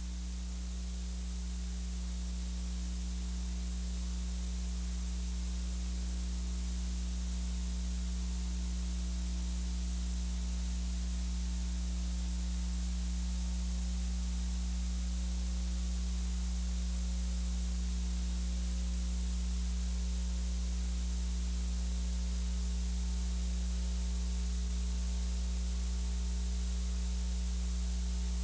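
Steady electrical hum under a constant hiss, with no programme sound.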